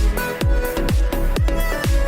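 Background electronic dance music: a deep kick drum about twice a second under sustained synth chords.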